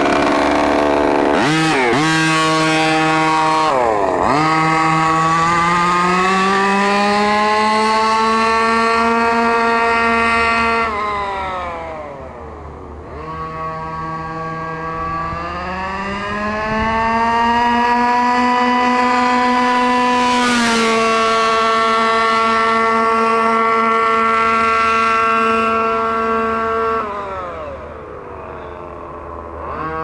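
Small two-stroke gas engine of a 1/5-scale Redcat Rampage MT RC monster truck running under throttle. Its pitch climbs and holds high, drops back about eleven seconds in, climbs and holds again, then falls back near the end.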